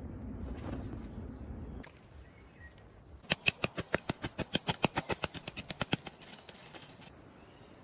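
A rapid run of about two dozen sharp taps, roughly nine a second for nearly three seconds, after a low rumbling noise in the first second or two.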